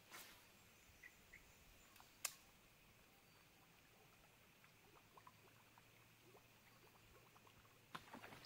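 Near silence: faint outdoor ambience with a few soft clicks and one sharper click about two seconds in.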